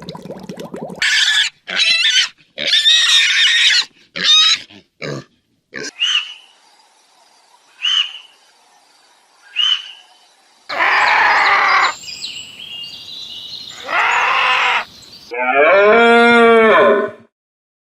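A string of different animal calls, one after another with abrupt changes between them: several high calls, a few short chirps, then longer, louder calls, the last one pitched and wavering.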